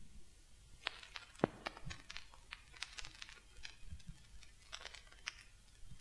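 Vinyl record surface noise in the silent groove between tracks: faint scattered crackles and pops, starting about a second in.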